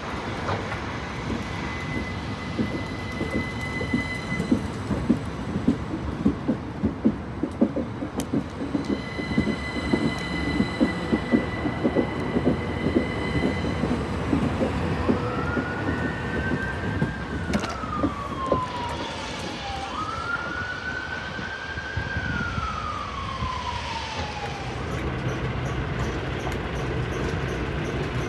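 Class 377 Electrostar electric multiple unit moving along the platform, its wheels clicking and thumping over rail joints, with a steady high electric whine heard twice. Midway a siren wails twice, each time rising, holding and falling, and a low steady hum comes in near the end.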